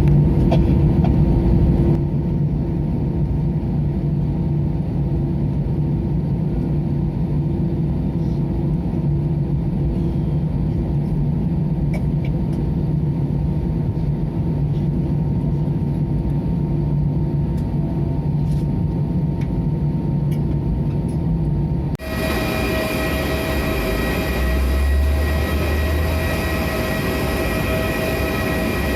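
Steady low drone inside an Airbus A320-200 cabin, its engines running at idle after landing. About 22 seconds in it cuts abruptly to a different steady noise carrying several higher whining tones.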